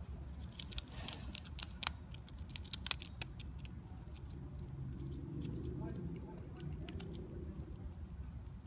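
Sharp, crisp clicks and cracks, densest in the first three seconds and sparser after, as a black squirrel bites into an in-shell peanut.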